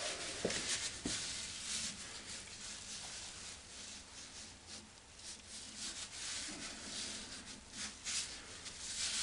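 A rag rubbing grease off the metal taper of a milling machine's fine-feed handle: a run of irregular hissing wipe strokes, with a couple of light knocks in the first second or so.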